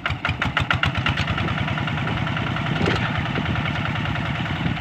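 Diesel engine of a rice-field hand tractor catching after being hand-cranked. Distinct strokes come quickly for about the first second, then it settles into steady running.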